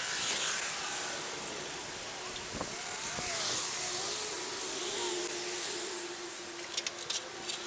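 Road traffic, a motor vehicle passing on the street below, with a handful of sharp clicks near the end.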